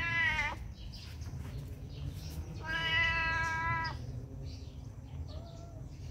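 Domestic cat meowing. The end of one meow falls away just after the start, then comes one long, level meow of over a second, and a faint short mew near the end.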